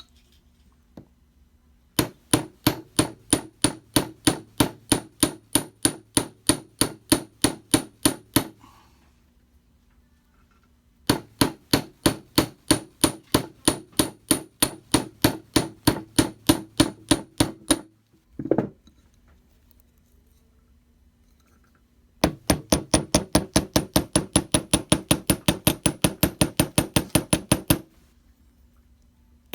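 Chasing hammer tapping brass wire on a bench block to flatten the eye of a wire clasp: three runs of quick, even, ringing strikes with short pauses between, the last run faster.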